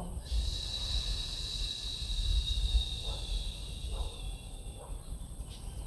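A slow, long exhale, heard as a low rumble of breath on the microphone. Behind it an insect's steady high drone runs and fades out about four seconds in.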